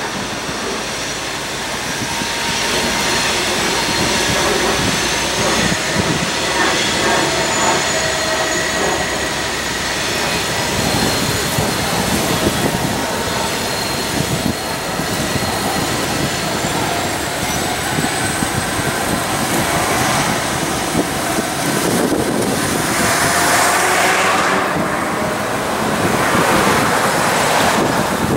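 EMD GP50 diesel locomotive pulling a train of covered hoppers around a curve: the engine runs under load while steel wheels squeal against the rail in thin, drawn-out tones. The sound gets louder for a few seconds near the end.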